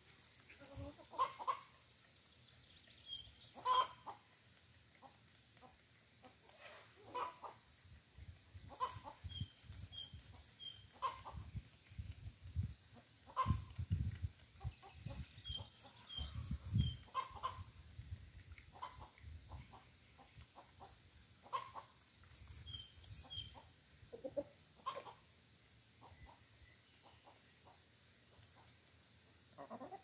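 Free-range chickens clucking softly and pecking at a concrete yard, with short sharp taps scattered throughout. A small songbird repeats a short high chirping phrase every few seconds.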